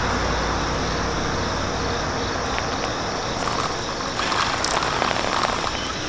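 A road vehicle going by, its low rumble fading away. Light clicks and a short thin whine come in the second half.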